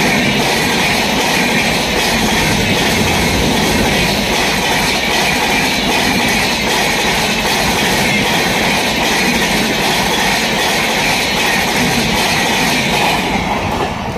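LHB passenger coaches of an express train rolling past at speed: loud, steady wheel-on-rail noise with rapid clicking of the wheels. It falls away near the end as the last coach passes.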